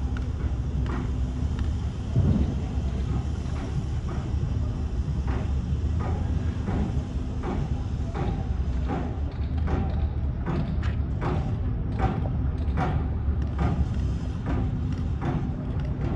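Irregular sharp taps and knocks from paving-tile laying, coming about one to two a second in the second half, over a steady low hum and rumble.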